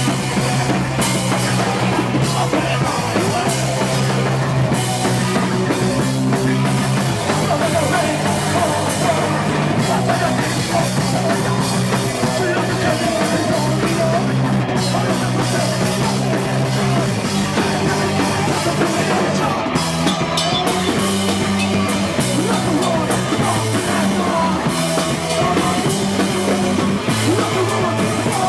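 A rock band playing loud and without a break: drum kit, electric guitar and bass, with held low notes that change every second or two.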